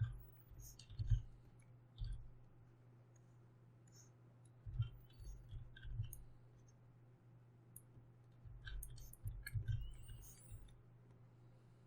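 Faint, irregular clicking and tapping from computer input while digital painting, with dull low thumps in several clusters, over a steady low hum.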